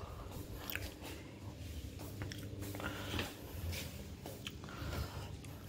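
Soft footsteps on a tiled floor and handling noise from a hand-held phone as a person walks, with a few light clicks.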